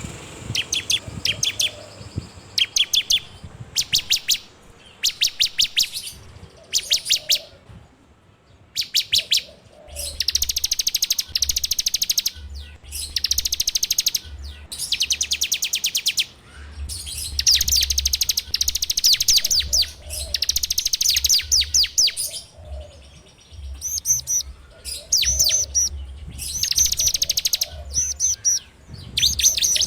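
Bar-winged prinia (ciblek) singing its rapid rattling trill ("ngebren"), in repeated high bursts of fast notes, each about a second long with short pauses between them.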